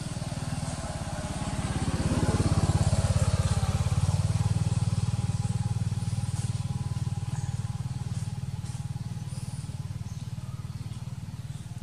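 A vehicle engine running with a low, fast pulse, growing louder about two seconds in and then slowly fading.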